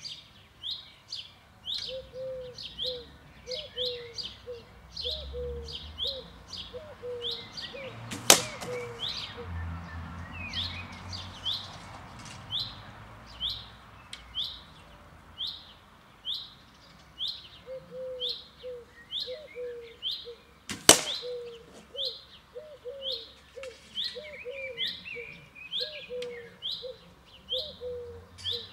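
Two sharp cracks of arrows striking small carton targets standing in the grass, about twelve seconds apart, each knocking a carton over. Birds chirp throughout in quick, repeated short calls.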